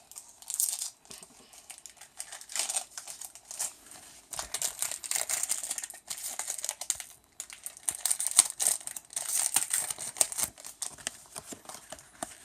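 Foil Pokémon booster pack wrapper crinkling in irregular bursts as it is handled and torn open, loudest about eight to ten seconds in.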